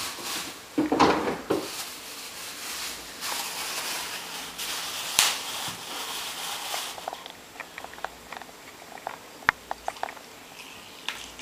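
Kitchen handling noises, a rustle and a knock, then a lemon half squeezed by hand over a measuring cup of marinade, with a run of small crackling clicks.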